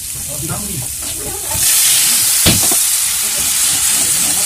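Vegetables frying and being stirred in a hot kadai with a wooden spatula. About a second and a half in, hot water goes into the pan and a loud, steady sizzling hiss starts as it hits the hot oil. The spatula knocks once against the pan shortly after.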